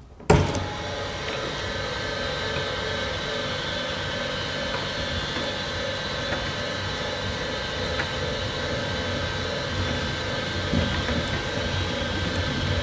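Egg-collection conveyor running with a steady mechanical hum, with a few faint clicks as eggs roll onto its perforated metal table.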